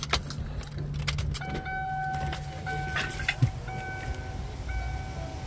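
Keys clicking and jingling in the ignition of a 1997 Lincoln Town Car, then the air suspension compressor running with a steady low hum as it raises the lowered rear. From about a second and a half in, the car's warning chime beeps about once a second.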